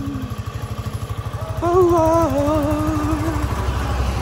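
Motorcycle engine running at a steady idle, a rapid even low throb. About a second and a half in, a drawn-out voice-like tone that wavers in pitch sounds over it for about two seconds.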